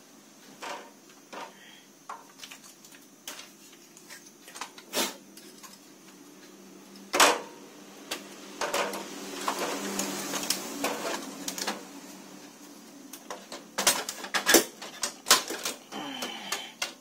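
Sheet-metal and plastic paper-pickup assembly of a Canon iR6000 photocopier being handled and slid back into its slot: scattered clicks and knocks, a scraping slide in the middle, and a cluster of sharp knocks near the end as it seats.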